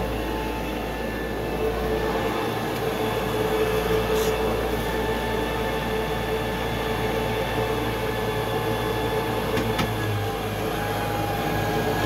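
Bissell BGCC28 wide-area commercial vacuum running steadily over carpet, a constant motor tone over a dense rushing noise. Its brushroll is set too high, so it is not making good contact with the carpet.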